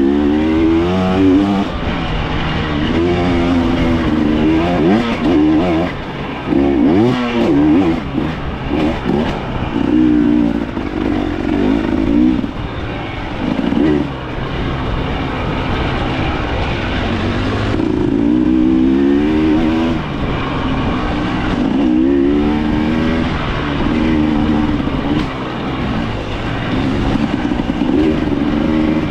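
Off-road dirt bike engine revving up and down over and over, with its pitch climbing in short bursts every two to three seconds and dropping back between them, as the bike is worked through rough trail riding.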